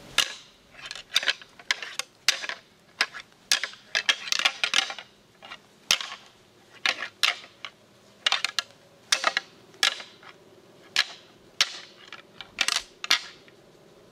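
A pair of deer antlers rattled and clashed together, making irregular sharp clacks, often in quick clusters, that stop near the end. This is antler rattling, imitating two bucks sparring to draw in a buck.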